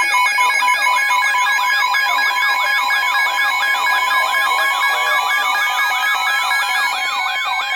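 Several weather alert radios sounding their warning alarms at once, the signal that a new severe thunderstorm warning is being issued. A fast warbling, siren-like tone repeats about four times a second over a steady tone and a beeping tone, and a slowly rising tone joins about halfway through.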